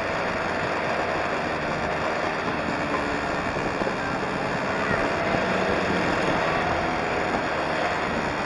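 Small engine of a street go-kart running as the kart drives along, its pitch rising and falling a little, mixed with a steady rush of wind over the kart-mounted microphone.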